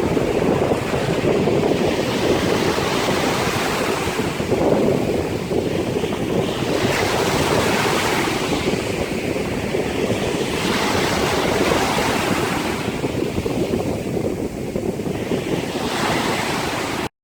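Wind buffeting the microphone over the rush of surf, with the hiss swelling and easing every few seconds, then cutting off suddenly at the end.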